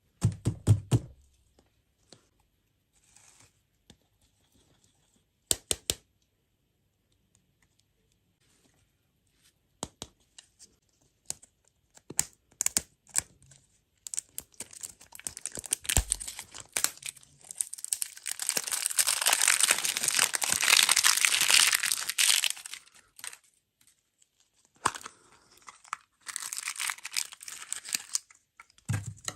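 Surprise-egg wrapping being torn open and crinkled by hand: scattered clicks and rustles at first, then a long stretch of loud tearing and crinkling about halfway through, with more crinkling near the end.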